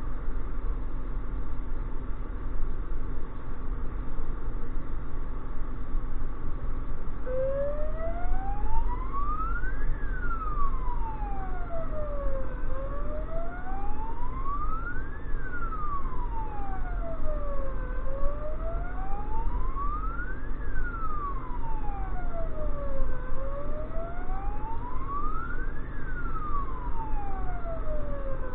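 A wailing emergency siren switches on about seven seconds in and rises and falls slowly, one full cycle about every five seconds. It is heard from inside the vehicle's cab over the steady rumble of the engine and tyres.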